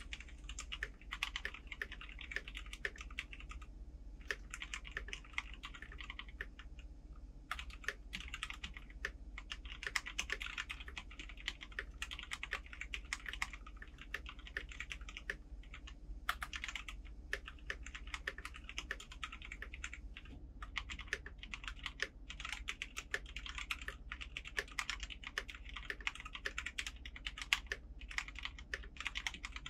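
Fast typing on an EVGA Z15 mechanical keyboard: dense runs of key clicks broken by a few short pauses. The stabilizers are freshly lubed; their wires are not yet balanced.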